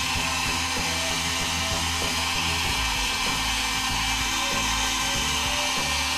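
Electric heat gun blowing a steady rush of hot air onto the pin side of a PC processor, softening the solder so the gold-plated pins come loose. Background music plays underneath.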